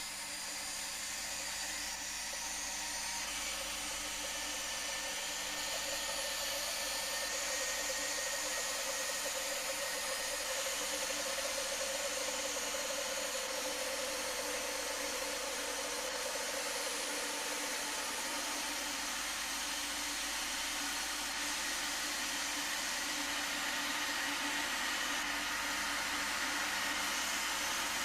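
Kettle blowing at the boil: a steady rushing hiss of steam with a faint tone in it, slowly growing louder.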